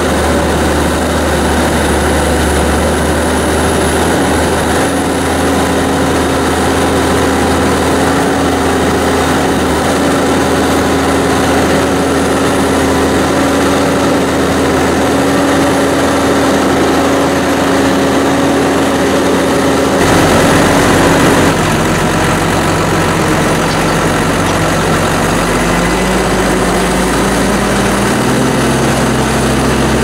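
New Holland TM 175 tractor's six-cylinder diesel engine running steadily, heard from inside the cab. Its note changes abruptly about two-thirds of the way through, then shifts again in steps near the end.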